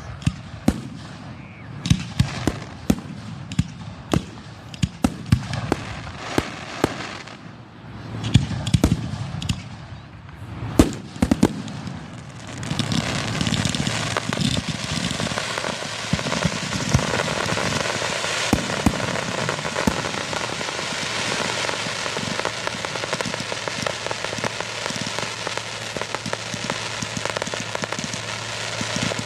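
Fireworks going off at close range: a run of sharp separate bangs for about the first twelve seconds, then a dense, continuous crackle of many small bursts.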